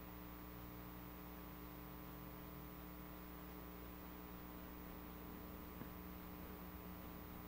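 Quiet room tone with a faint, steady electrical hum.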